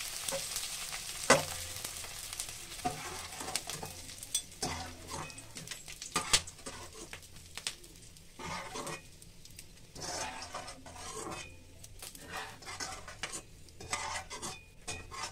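Gond (edible gum) sizzling and puffing in hot desi ghee in a nonstick kadhai, the sizzle strongest for the first few seconds and then dying down. A steel slotted spoon and a wire-mesh strainer clink and scrape against the pan as the puffed gum is stirred and scooped out.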